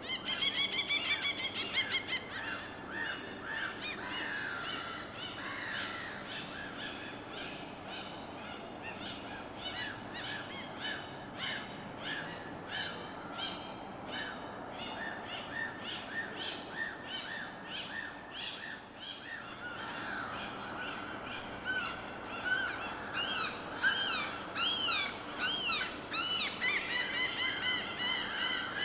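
Several birds calling over a steady background hiss: fast runs of short repeated calls throughout, louder at the start and again in the last quarter, where sharp rising-and-falling squawks stand out.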